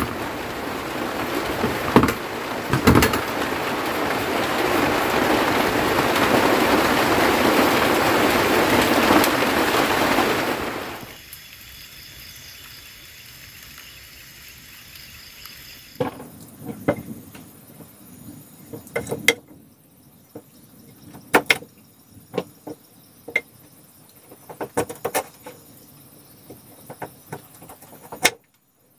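Heavy rain as a loud steady hiss, with a couple of knife scrapes, breaking off suddenly about eleven seconds in to a quiet background with faint insects. From about sixteen seconds, irregular sharp knocks of a knife cutting sweet potato on a wooden block.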